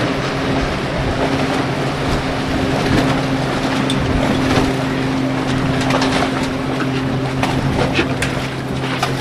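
An engine running steadily at one constant speed, with wind noise on the microphone and scattered sharp clicks in the second half.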